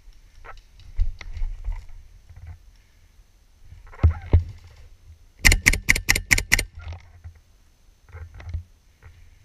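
A quick string of about seven sharp airsoft shots, roughly seven a second, muffled by a waterproof camera housing. Two dull knocks come a second or so before it, with scattered lighter knocks around.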